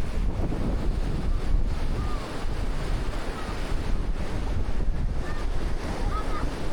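Black Sea surf washing on the beach, with wind buffeting the microphone in a steady low rumble. A few faint, short high chirps come through in the second half.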